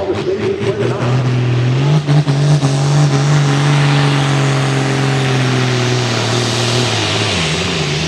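Ford farm tractor's diesel engine pulling a sled at full throttle. It revs up about a second in, holds a steady high note for several seconds, then falls away near the end as the pull stops short, which the announcer puts down to clutch problems.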